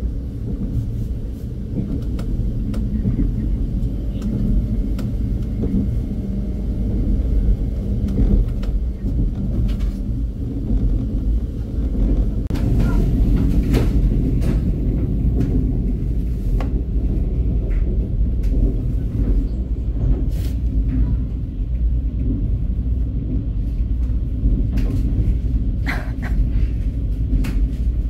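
Low, steady rumble of a passenger train running, heard from inside the carriage, with occasional short clicks and knocks.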